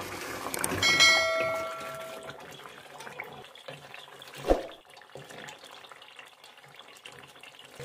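Wooden spoon stirring a thick chicken curry simmering in an aluminium pot, with a soft bubbling hiss. A short ringing chime sounds about a second in, and there is a single sharp knock of the spoon against the pot midway.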